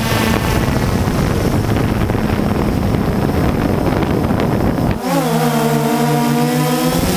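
DJI Phantom 2 quadcopter's motors and propellers whining in flight, buried under heavy wind buffeting on the microphone. About five seconds in, the wind rumble drops away abruptly and the rotor whine comes through clearly as a steady set of tones, dipping briefly in pitch and recovering.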